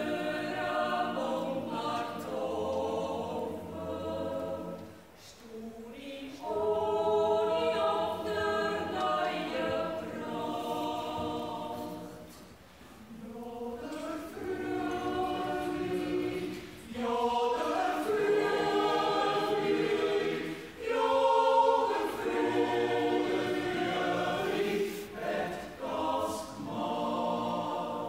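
Swiss yodel choir singing a cappella in a yodel song, several voices together in long held phrases broken by short breathing pauses.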